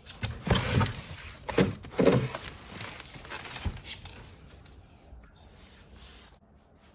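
Rustling and knocking from handling a large cardboard box and its packaging, loudest in the first three seconds, then fading to faint room noise.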